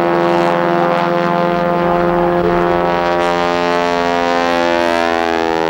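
Aerobatic biplane's piston engine and propeller running loud and steady overhead, its pitch shifting near the end as the plane maneuvers.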